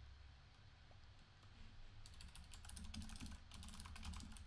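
Faint typing on a computer keyboard: quick, closely spaced key clicks starting about two seconds in, after a mostly quiet first half.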